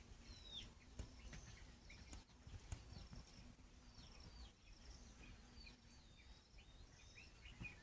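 Faint bird chirping: many short, high notes that fall in pitch, scattered irregularly, over a faint low hum.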